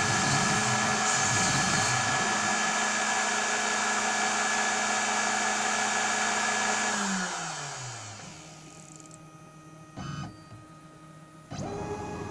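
Electric motor of a CNC router setup running steadily, then switched off and spinning down with falling pitch. A brief sound follows, and a new steady motor hum starts abruptly near the end.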